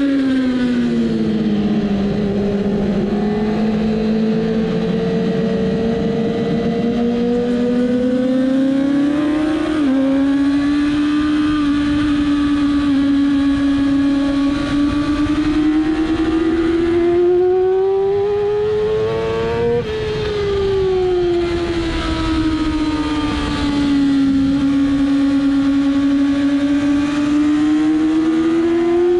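2007 Yamaha R6 race bike's inline-four engine, heard onboard, rising and falling in pitch as the throttle is worked through wet corners. The pitch jumps suddenly at about a third of the way in, climbs to a peak about two-thirds in, then falls off and climbs again.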